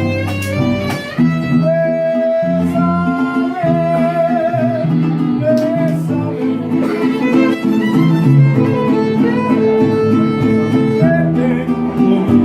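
A Mexican string band playing live: a violin carries a slow melody with vibrato over strummed guitar chords and a plucked low bass line.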